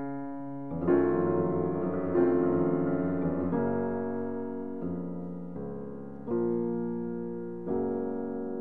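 Slow solo piano music: chords struck about every second or two, each left to ring and fade.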